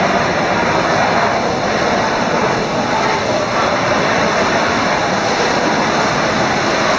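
Steady wash of splashing from several swimmers swimming backstroke side by side in an indoor competition pool.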